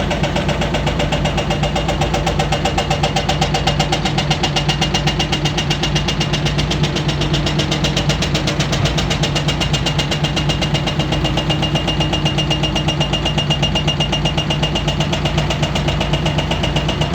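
Komatsu PC400 hydraulic excavator's six-cylinder diesel engine running steadily, with a rapid even pulsing and a steady high-pitched tone over it.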